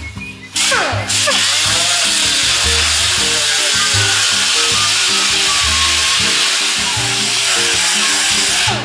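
Small handheld air sander with a coarse 36-grit disc grinding on hard fiberglass: a loud, steady hiss that starts just under a second in, with its pitch falling briefly as the disc bites, and stops just before the end. Background music plays underneath.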